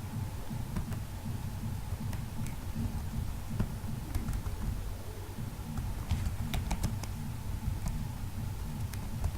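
Computer keyboard keys being typed: faint, scattered clicks with a small run of them about six to seven seconds in, over a low steady hum.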